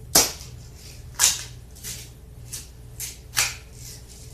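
Daisy 117 Targeteer spring-powered BB pistol shooting at a paper target on a cardboard box: a string of short sharp snaps, three loud and four fainter, spaced roughly half a second to a second apart.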